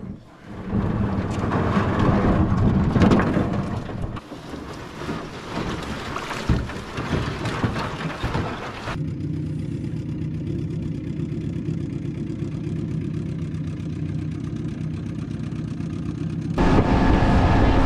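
Small boat's outboard motor running steadily. In the first half there are knocks and scraping as the hull is pushed off a rocky shore. Near the end the motor is louder, with wind on the microphone.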